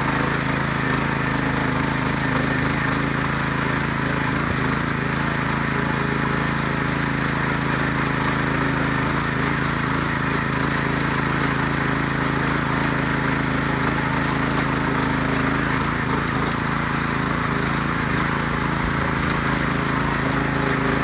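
Ruris DAC 7000 ACC2 motor hoe's engine running steadily under load as its rotary tines till dry garden soil.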